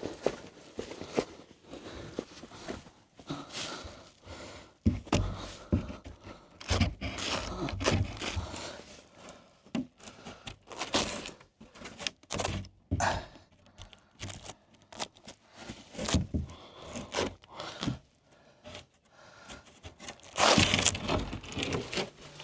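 Irregular knocks, thunks and scraping as a homemade greenhouse door is handled and offered up against the door frame to check its fit, with a louder scraping rustle near the end.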